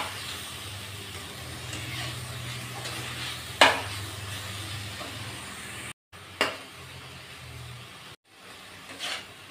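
Shredded cabbage sizzling in oil in a kadhai as a spatula stirs it, with a few sharper scrapes and knocks of the spatula against the pan, the loudest about three and a half seconds in. The sound drops out briefly twice.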